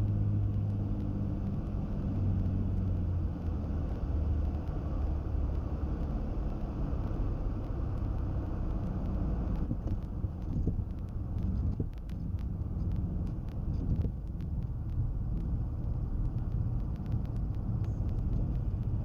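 Cabin noise of a Cessna 310's twin piston engines: a steady drone with a pitched hum that fades over the first few seconds as the note drops back, leaving a rougher rumble. Scattered light clicks and knocks come through in the second half.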